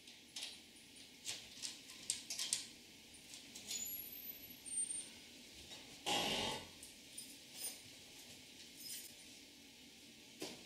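A person coming through a door and walking up to a piano: a run of small clicks and knocks from the door and footsteps, then one louder brushing thud about six seconds in as things are set down on the piano, with a few light taps after.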